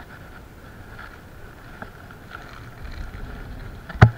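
A hand kneading and mixing damp groundbait in a plastic bucket, with faint scratchy ticks over steady wind noise on the microphone, and one sharp knock near the end.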